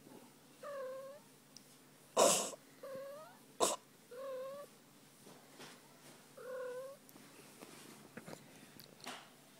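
Domestic cat purring steadily under a belly rub, with four short meows, each about half a second long and bending in pitch. Two brief loud scuffing noises, a little after two seconds and near the middle, are the loudest sounds.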